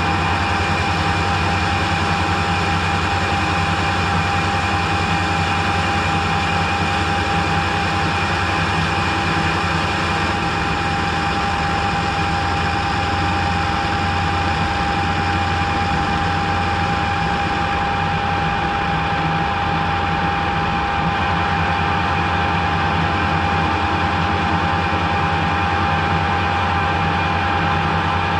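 Harrison centre lathe running steadily under power with its chuck spinning, turning a bar. A steady, high gear whine sits over the low hum of the motor and headstock.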